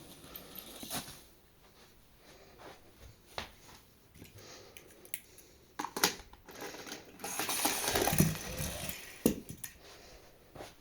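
Small die-cast toy cars clicking and clattering against a plastic track, in scattered sharp knocks with a longer rolling rush about two-thirds of the way in.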